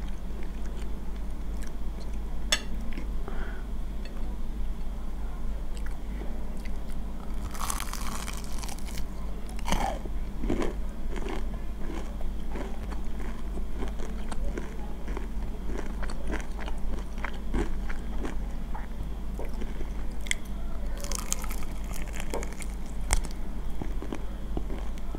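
Close-miked eating: chewing and biting, with two louder bursts of crisp crunching from bites into battered fried chicken, one about eight seconds in and another around twenty-one seconds.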